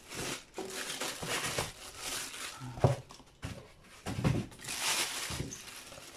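Clear plastic wrapping crinkling and foam packing blocks rustling as they are handled and pulled away, with a sharp knock about three seconds in and a couple of duller thumps after.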